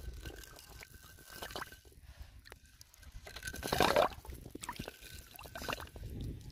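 Shallow pond water sloshing and dripping as a rope-wrapped bamboo pipe fish trap is handled and set down into it. There are small knocks and one louder rush of noise a little past halfway.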